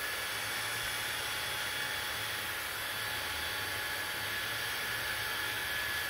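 Hand-held hair dryer running and blowing on hair, a steady rush of air with a faint high whine from its motor.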